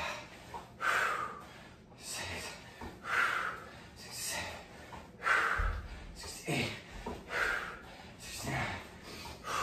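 A man breathing hard from the exertion of reverse lunges, with a short forceful exhalation about once a second. One low thud about halfway through.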